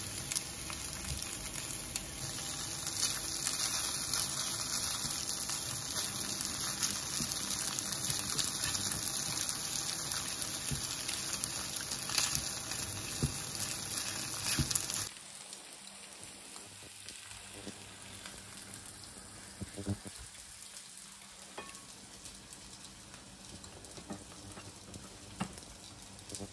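Onion and crab sticks sizzling in a frying pan, with the scrape and clicks of a wooden spatula turning them. About halfway through it cuts off suddenly to a much quieter stretch with a few small clicks.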